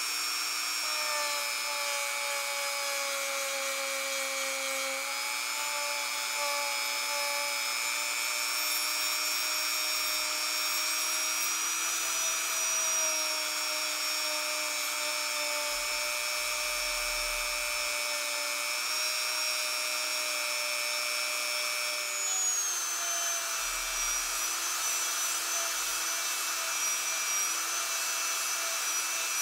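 Handheld rotary tool running steadily as a small abrasive point grinds the knife's steel. It gives a steady high whine whose pitch steps up slightly about three-quarters of the way through.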